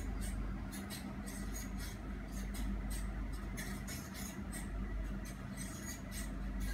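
A steady low hum with frequent short, high-pitched chirps or ticks scattered irregularly through it, several a second.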